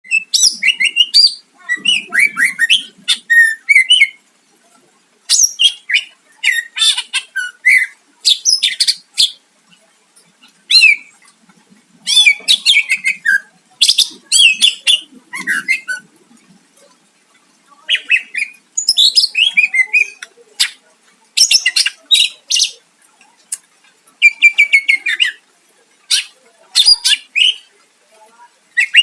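Cucak ijo (green leafbird) singing loudly in repeated bursts of rapid, shrill chattering and whistled phrases, each a second or two long with short pauses between.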